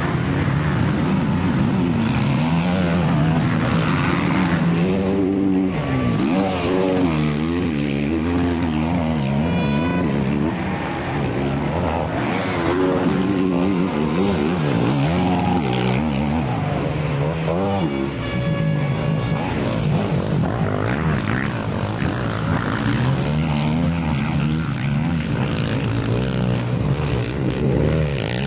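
Small engines or motors running continuously, their pitch wavering up and down.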